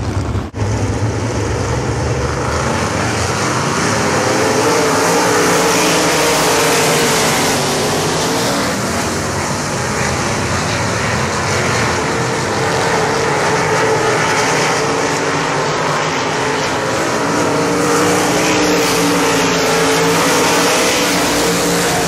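Winged sprint cars' V8 engines running hard together in a pack on a dirt oval, a loud, steady blend of several engines with pitches rising and falling.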